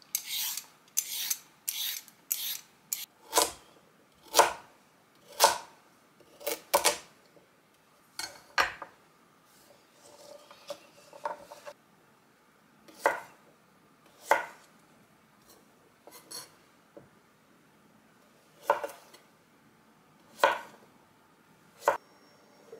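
A vegetable peeler scraping down a carrot in quick strokes for the first three seconds, then a kitchen knife cutting vegetables on a wooden end-grain chopping board: single sharp knocks about a second apart, with a pause in the middle.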